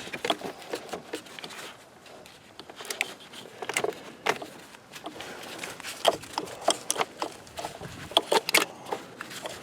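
Scattered small clicks, taps and rattles of hands fitting a new ignition coil pack on its adapter into the engine's coil well.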